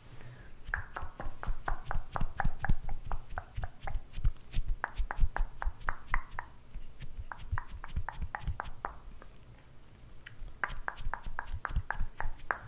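Cushion-compact puff patted quickly against the microphone: soft, rapid taps about five a second, in four runs with short pauses between them.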